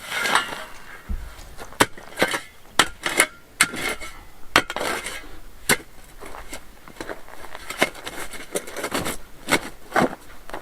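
A metal digging tool striking and scraping into hard, stony ground while digging a post hole. The sharp clinking blows come at an irregular pace, with the scrape and crumble of earth and stones between them.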